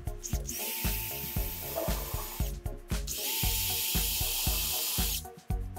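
Bosch cordless drill running twice, about two seconds each time, drilling into plywood: a steady motor whine under a high hiss. Background music with a steady beat plays throughout.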